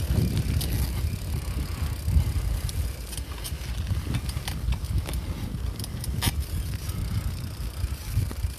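Bicycle riding along a dirt track: an uneven low rumble of wind and tyres on the microphone, with scattered clicks and rattles from the bike.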